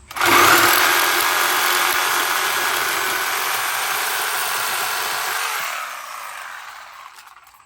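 Angle grinder with a cut-off wheel running as it cuts the steel tab off an aluminum driveshaft, starting suddenly, then winding down and fading out over about two seconds after the trigger is let go, about five and a half seconds in.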